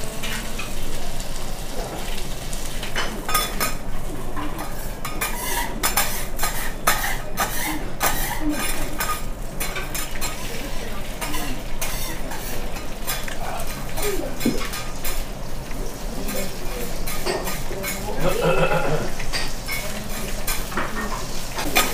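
Metal spatulas clicking and scraping against a teppanyaki iron griddle, with food sizzling on the hot plate; the clicks come thick and fast for several seconds a few seconds in.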